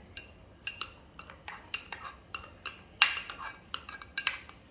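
Spoon scraping chopped onion off a ceramic plate into a glass bowl: a run of short scrapes and clinks, the loudest about three seconds in.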